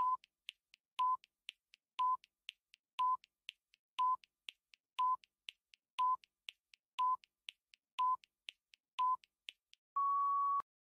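Countdown timer sound effect: ten short electronic beeps, one a second, with fainter ticks between them, then a longer final beep as the count reaches zero, cut off suddenly.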